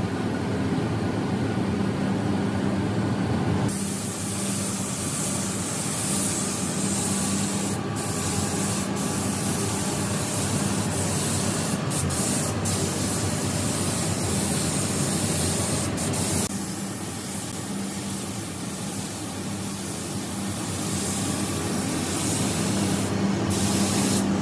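Gravity-feed paint spray gun hissing as it sprays, starting about four seconds in, with several short breaks where the trigger is let go. A steady low hum runs underneath.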